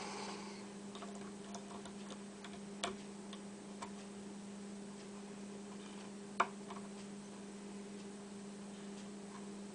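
Scattered light metallic clicks from a hook pick working the pins of a 7-pin Best SFIC padlock under tension, the sharpest click about six seconds in. A steady low electrical hum runs underneath.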